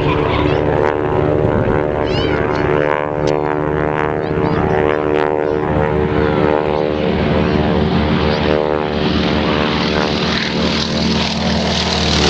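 Radial-engined World War II trainer warbirds in flight, giving a steady propeller drone. Near the end one comes in on a low pass and the engine sound swells.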